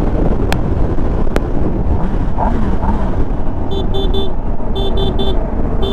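Steady wind and engine rumble from riding a motorcycle through road traffic. From about four seconds in, a vehicle horn beeps in quick groups of three short toots.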